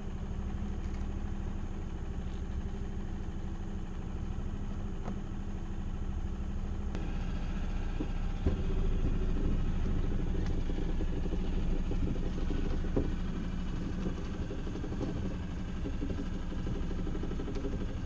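Small sailboat's engine running steadily under way, growing a little louder and fuller about seven seconds in, with a single knock about eight and a half seconds in.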